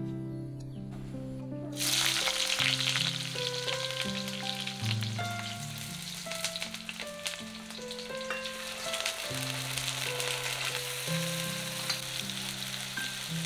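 Ingredients tipped into hot mustard oil in an iron wok start sizzling loudly and suddenly about two seconds in, and keep frying as they are stirred with a wooden spatula. Soft background music with held notes plays throughout.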